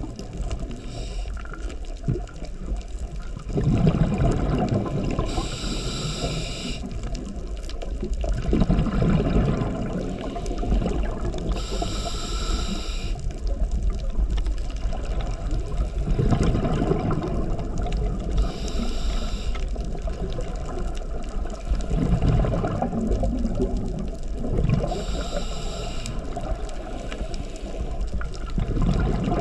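Scuba regulator breathing underwater: a banded hiss on each inhale about every six seconds, alternating with a rush of low bubbling on each exhale, over a steady low rumble of water.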